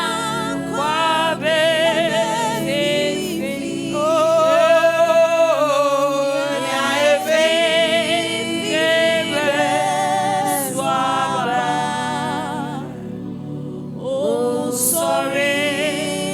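Gospel singing: a solo voice with strong vibrato sings sustained, melismatic phrases over a soft accompaniment of lower voices or keyboard, with a short break before the last phrase.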